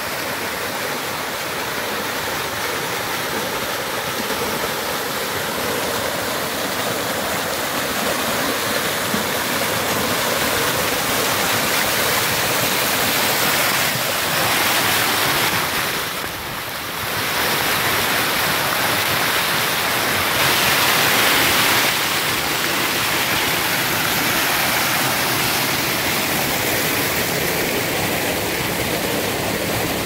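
Waterfall pouring and splashing over a rock face in a steady, full rush of water, dipping briefly just past halfway and swelling a little a few seconds later.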